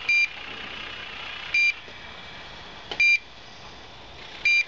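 Low-frequency pipeline-pig locator beeping: four short, high-pitched beeps about one and a half seconds apart, over a steady hiss. The beeps signal that the locator is picking up the PNT-00 transmitter's pulsing magnetic field through the steel wall of the pressurised hydrotest chamber, showing that the transmitter is still working.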